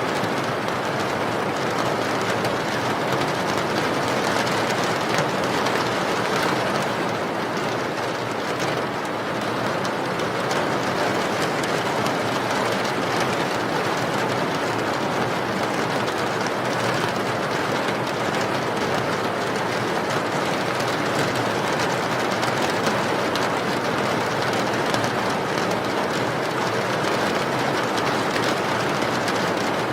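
Steady rain: an even, unbroken hiss of many drops with some low rumble beneath it.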